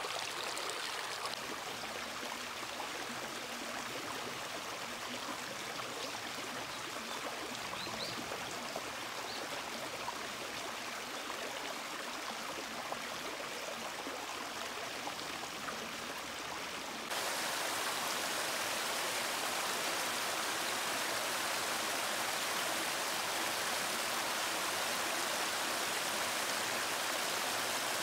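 Shallow mountain stream babbling over stones. About two-thirds of the way in it cuts abruptly to the louder, steady rush of a small waterfall pouring into a pool.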